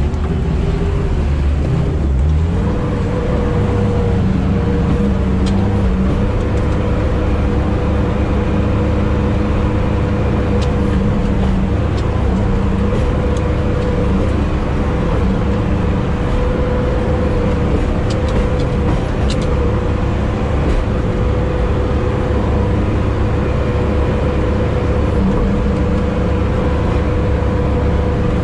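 Sherp amphibious ATV's diesel engine and drivetrain running steadily under load, heard from inside the cab, a constant drone with a steady whine, while it drives across broken ice and shallow water.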